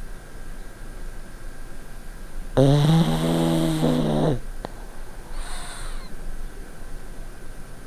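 A pug snoring: one loud, low, pitched snore starting about two and a half seconds in and lasting nearly two seconds, followed by a fainter, breathier breath.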